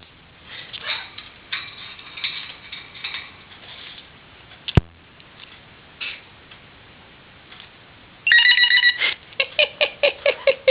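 Peach-fronted conure mimicking a cell phone ring. Soft scattered chirps come first. About eight seconds in, a loud ringing tone starts and breaks into a quick run of short repeated beeps. A single sharp click comes near the middle.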